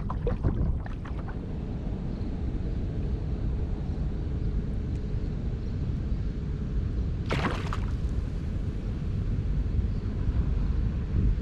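Steady low wind rumble on the microphone over open water, with a brief splash about seven seconds in from the hooked barracuda thrashing at the surface beside the kayak.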